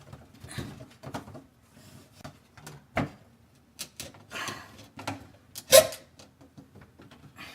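Irregular light knocks, taps and scrapes of hand work on thin wood door molding, with a sharper knock about three seconds in and the loudest one a little before the end.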